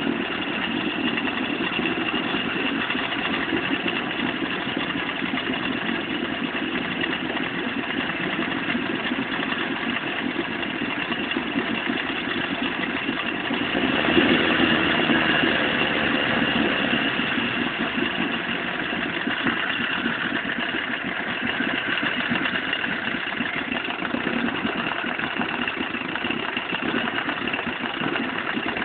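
Veterok-8 two-stroke outboard motor running steadily, its revs rising briefly about halfway through and then easing back; the engine has a knock that the owner is tracking down.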